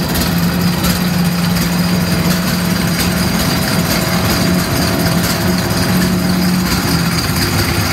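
1909 Lorraine-Dietrich racing car's engine idling steadily, a loud, even low beat with a constant hum.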